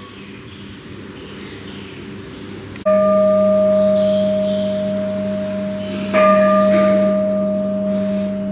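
A large bell struck twice, about three seconds apart, each stroke ringing on and fading slowly with a low hum under a clearer higher tone.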